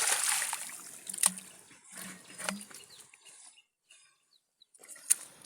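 Water splashing and trickling, starting loud and fading, with a few sharp clicks.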